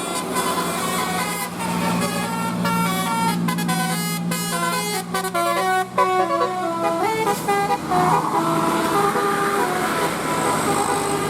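A bus's multi-tone telolet air horn (a Basuri horn) playing a quick melody, several trumpet notes sounding together and stepping rapidly up and down in pitch, with longer held notes in the last few seconds over a steady low drone.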